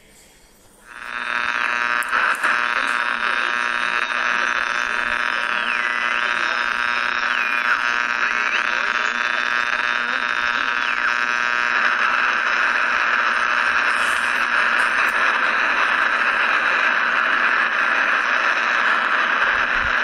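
Shortwave radio tuning noise: a harsh, dense buzz starts about a second in, with a high whistling tone that drops in pitch and comes back a couple of times. About twelve seconds in it turns into steady hiss of static.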